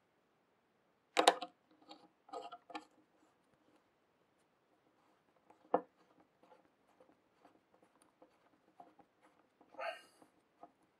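Small metal clicks and taps of a rebuildable atomizer's top section being fitted onto its base. The sharpest click is about a second in, a few more follow around two and a half seconds and near six seconds, and there is a brief scraping rattle near the end.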